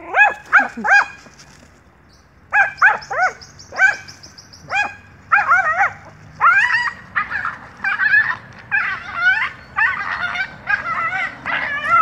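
Dog yelping and whining excitedly in short, high-pitched cries. There are three quick ones at first, then after a short pause the cries come again and run on almost without a break.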